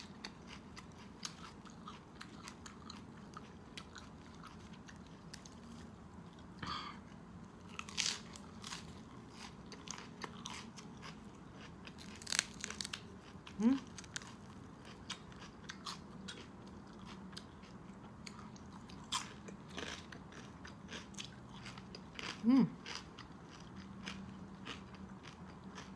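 Close-up eating sounds of baked pork with crisp, charred skin and lettuce: wet chewing with scattered sharp crunches and bites at uneven intervals. A short hummed "mm" comes twice, about halfway and near the end.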